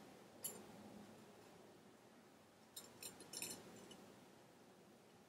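Near silence: room tone with a few faint light clicks, one about half a second in and a short cluster around three seconds in.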